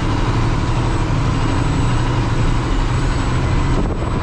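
Cummins X15 diesel engine of a loaded Kenworth T800 dump truck running steadily under load on a hill climb, heard from inside the cab, with road and tyre noise.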